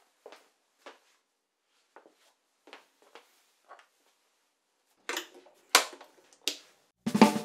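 Soft, spaced taps and handling clicks on a wooden floor, then a cable's jack plug pushed into a semi-hollow electric guitar's output jack, giving three louder pops with a brief ringing buzz through the amplifier. A band with guitar and drums starts playing near the end.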